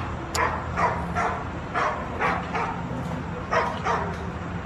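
An animal giving a rapid series of short yelping calls, each falling in pitch, about two or three a second with a brief pause midway.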